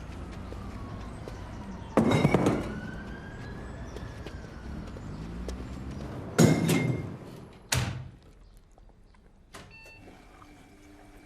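Three loud thuds, about two seconds in, six and a half seconds in and a second after that, then a lighter knock. Behind them a faint wailing tone slowly falls, then rises and falls again.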